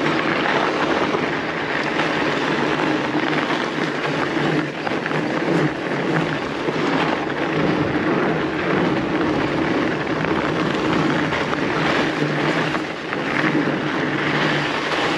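Fat bike riding on a packed snow trail: a steady rushing noise of the wide tyres rolling over snow and wind over the camera microphone, with a low hum underneath.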